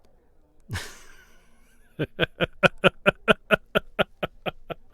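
A man's laugh: a quick breath in about a second in, then a steady run of short "ha" pulses, about five a second, for nearly three seconds, fading toward the end.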